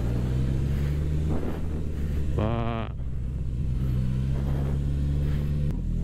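Suzuki GSX-S1000F's inline-four engine running steadily while riding, heard from the rider's seat. Its pitch drops abruptly near the end. A brief wavering tone is heard about two and a half seconds in.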